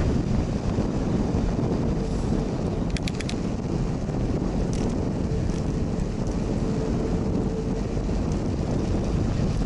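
Wind buffeting the microphone of a bicycle-mounted action camera while riding, over a steady road rumble. A few light clicks about three seconds in.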